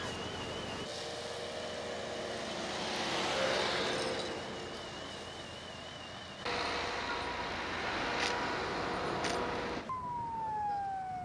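Steady rushing outdoor noise with a couple of short knocks, then, about ten seconds in, an emergency-vehicle siren wail whose pitch falls and then begins to rise again.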